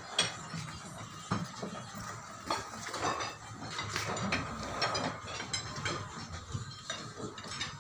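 Irregular metal clinks and knocks of steel bars turning screw jacks that are lifting a brick house.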